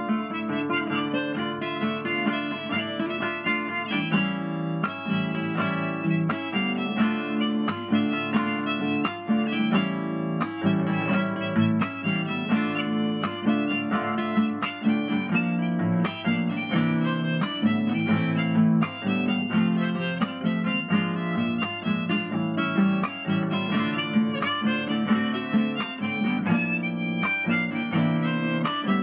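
Background music led by harmonica over guitar, a steady instrumental tune.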